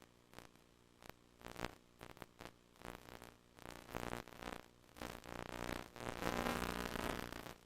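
VHS Hi-Fi audio buzz from a blank, damaged tape: a low buzz with stacked harmonics, broken by irregular bursts of crackly static several times a second, swelling into a louder stretch of noise near the end.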